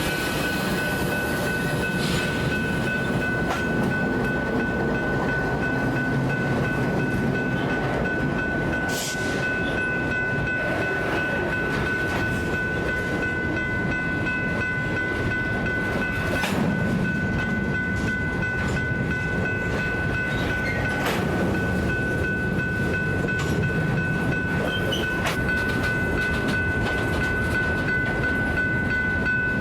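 Freight train rolling past: a steady rumble of steel wheels on the rails with a few sharp clacks, and a steady high-pitched squeal.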